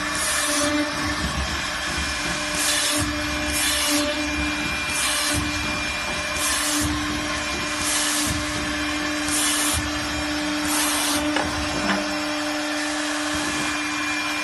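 CNC side hole drilling machine running with a steady motor hum. A short hiss comes about every second and a half as it cycles through its drilling strokes.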